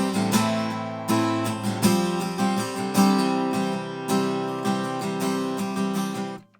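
Acoustic guitar strummed in steady chords, about two strums a second, stopping abruptly near the end.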